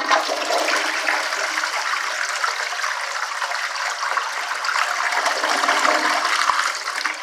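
Toilet flushing: a sudden loud rush of water that runs for about seven seconds and eases off near the end, from a flush mechanism that has been modified at home to flush differently.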